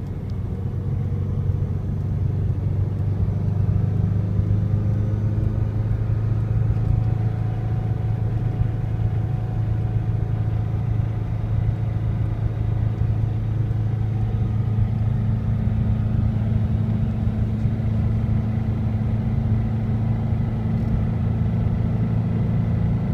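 Subaru WRX's turbocharged flat-four engine running at a steady speed, with faint steady high tones over the engine note. This is the weird noise that the owner says the car has started making at around 3500 rpm.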